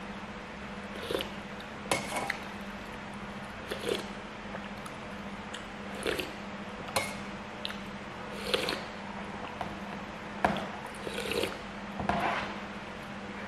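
Metal spoon clinking and scraping against a stainless steel bowl of noodle soup, with slurps of broth every second or two.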